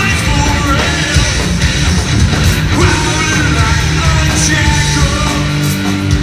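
Heavy metal band playing live and loud: distorted electric guitars, bass and drums, with a singer's voice over them.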